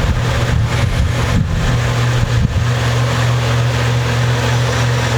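A steady low hum with constant hiss, unchanging throughout, with a few faint brief handling noises about one and a half and two and a half seconds in.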